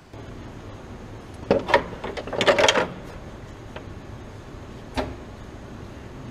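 Clicks and clattering knocks of parts or tools being handled in a car workshop, in two short flurries about a second and a half and two and a half seconds in, with one more click near the end, over a steady low hum.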